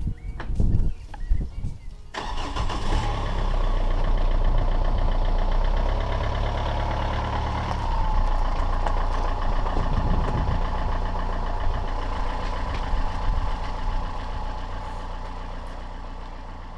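Renault Scénic's engine cranked on the starter and catching about two seconds in, then running steadily at idle before fading out near the end.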